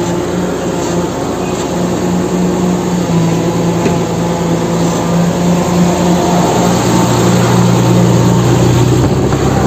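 A steady engine drone: a low, even hum with overtones that grows a little louder in the second half.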